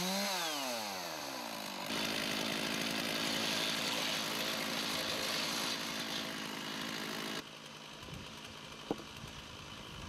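Chainsaw on a Norwood PortaMill chainsaw mill, its engine dropping in pitch as it slows. About two seconds in, the chainsaw runs hard through the log with a rough, noisy sound. This cuts off abruptly near the end to a quieter background with a single click.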